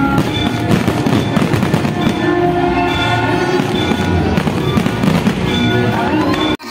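Aerial fireworks bursting in a dense, rapid barrage of bangs and crackles, with music playing underneath. The sound cuts off abruptly near the end.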